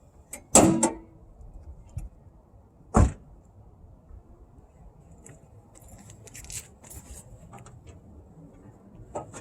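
Two sharp knocks about two and a half seconds apart, the loudest sounds here, followed by a scatter of small clicks and rattles.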